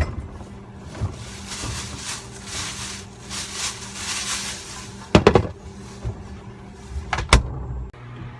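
Indoor handling noises: rustling over a steady low hum, with two sharp knocks about five and seven seconds in.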